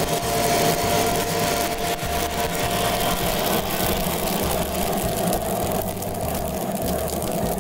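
Probat drum coffee roaster discharging a batch of freshly roasted beans: beans pouring from the drum into the cooling tray in a continuous rattling rush, over the steady hum of the roaster's motors and cooling fan, with a low pulse about once a second.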